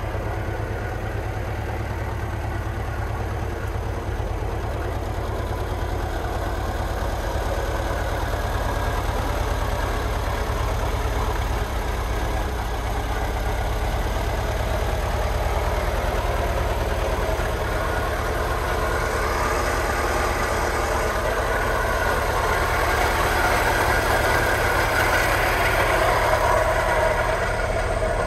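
Żuk A15 van's four-cylinder petrol engine idling steadily, growing louder near the end.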